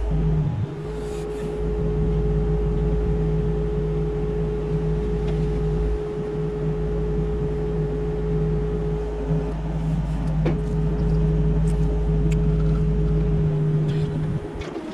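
Mini excavator's diesel engine running steadily with a constant hum. There is a short click about ten and a half seconds in, and the engine sound dips briefly near the end.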